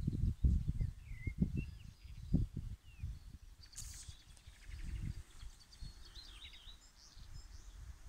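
Gusty wind buffeting the microphone in uneven rumbling bursts, strongest in the first half, with scattered small bird chirps and calls in the background.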